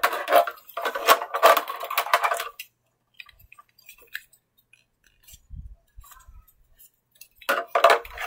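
Hard plastic clattering and rattling as a toy car and the toys in it are handled, busy for the first couple of seconds, then a quiet stretch with a few faint knocks, and more rattling near the end.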